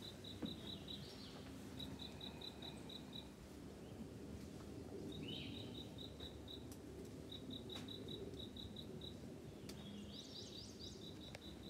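Faint wetland-forest ambience: a high chirp pulsing several times a second in short runs that repeat every couple of seconds, with a couple of brief bird calls, around the middle and near the end.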